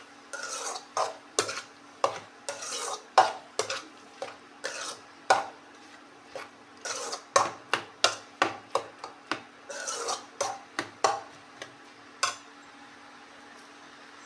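A spoon stirring chopped jackfruit frying in ghee in a kadai: a run of short scrapes and clinks against the pan that stops near the end, over a faint steady hum.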